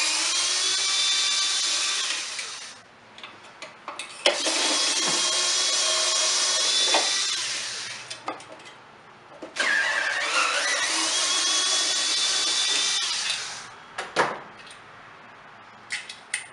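Cordless drill-driver backing out the muffler bolts on a Stihl BR420 blower. It makes three runs of a few seconds each, its motor whine rising as it spins up and then holding steady. Small clicks and clatter of handled parts come between the runs.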